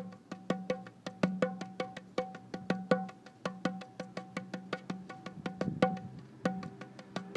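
Background music with a quick, regular beat of wood-block-like clicks over held low tones.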